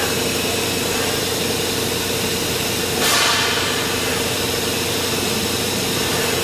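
Hurco VMX30U five-axis vertical machining center running, a steady mechanical hum with a held mid-pitched tone. About three seconds in, a sudden hiss starts and fades over about a second.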